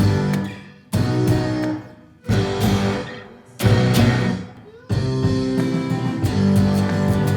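Guitar chords struck and left to ring out, four times about a second and a half apart, then steady continuous playing from about five seconds in.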